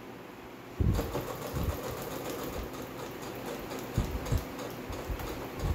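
Singer electric sewing machine stitching a seam through fabric. It starts about a second in and runs steadily as a fast, even patter of needle strokes, with a few low thumps now and then.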